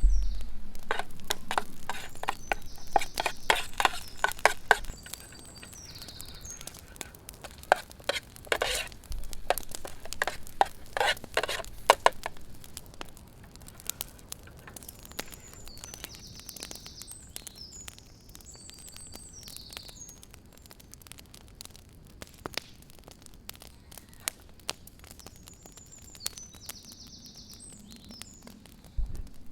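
Clicks, knocks and clinks of camp cooking gear and utensils being handled, busiest in the first twelve seconds and sparser after, with a bird chirping now and then.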